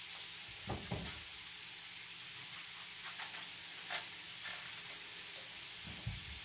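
Onion and garlic sizzling in olive oil in a frying pan, a steady hiss, with a few soft knocks from a knife cutting zucchini on a cutting board.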